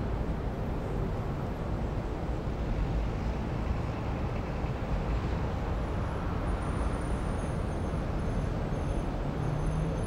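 City ambience: a steady, even rumble of distant road traffic, with no single vehicle standing out.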